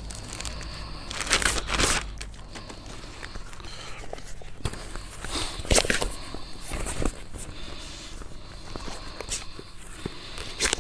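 Plastic rustling and crinkling as a collapsible PVC dog pool is unfolded by hand, its stiff wall panels and vinyl sheeting rubbing and flexing. There are louder bursts of crinkling about one and a half seconds in and again about six seconds in, with smaller crackles between them.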